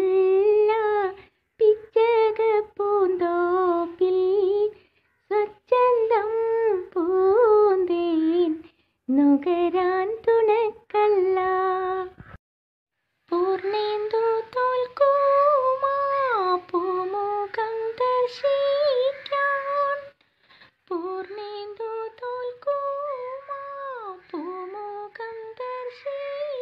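A single high voice singing a Malayalam madh song, a devotional song in praise of the Prophet, without accompaniment. The melody comes in phrases with gliding, ornamented pitch and short breaths between them.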